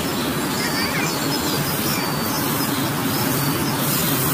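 Steady rumble of distant traffic, with a few short bird chirps.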